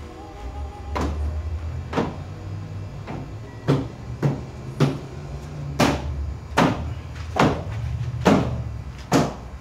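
A series of sharp knocks, about ten of them spaced under a second apart, over a steady low hum.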